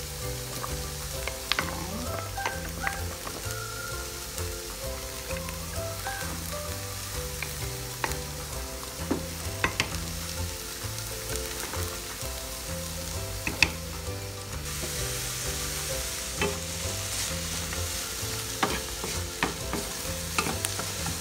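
Cooking sounds: a pot of chicken simmering at first, then, about two-thirds of the way in, a brighter sizzle as sliced onions cook in a dry non-stick pan with no oil added, on their way to caramelising. Scattered light clicks throughout. Soft background music with a melody and a bass line plays underneath.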